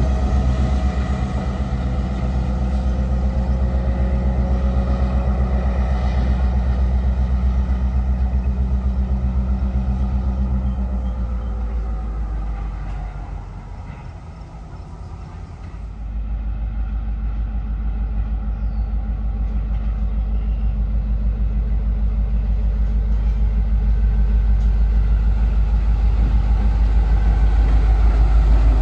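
EMD GP7 diesel-electric locomotive's 16-cylinder two-stroke 567 engine running as the locomotive moves along the track. It fades as the locomotive pulls away, drops to its quietest about halfway through, then grows louder again near the end as it comes back toward the listener.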